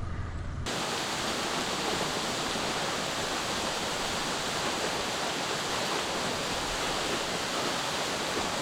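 Steady rushing of a waterfall, an even roar of falling water with no pitch or rhythm, starting abruptly less than a second in.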